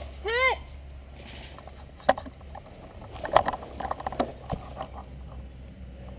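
A short cry that rises then falls in pitch just after the start, then a few scattered sharp clicks and knocks over a steady low hum.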